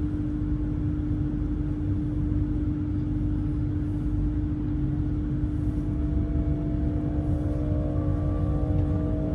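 Passenger train running, heard from inside the carriage: a low rumble with a steady hum. About six seconds in, a set of motor whines starts and rises slowly in pitch as the train picks up speed.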